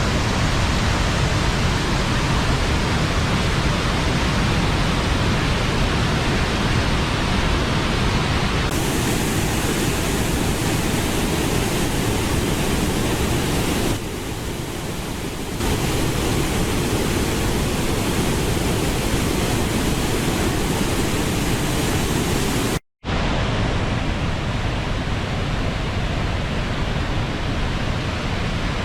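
Waterfall pouring: a steady rush of water. The sound changes abruptly about nine seconds in, turns quieter for a couple of seconds around fourteen seconds in, and cuts out to silence for a moment about twenty-three seconds in.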